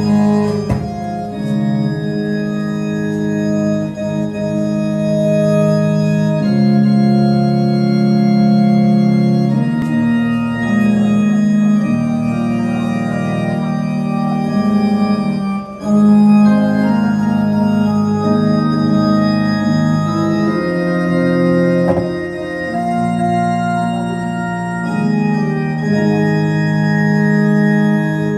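Slow organ music: long held chords that change every few seconds.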